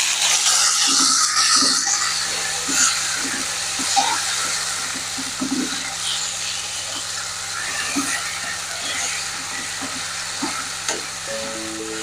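Chopped tomatoes sizzling in hot oil in a nonstick wok, stirred with a spatula that knocks and scrapes against the pan. The sizzle is loudest at the start and slowly eases off. Background music runs underneath.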